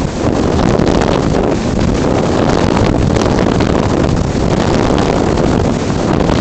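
Loud, steady wind rush on the microphone of a camera mounted on a motorless RC slope glider in flight: air streaming over the airframe and buffeting the mic, with no engine tone.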